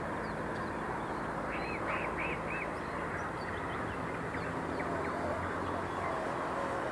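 City ambience: a steady rumble of background noise with birds chirping and calling over it, including a quick run of four calls about two seconds in.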